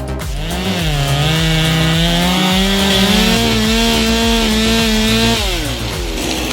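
Chainsaw run up to full throttle about half a second in and held there while cutting, then let back down to a falling pitch near the end.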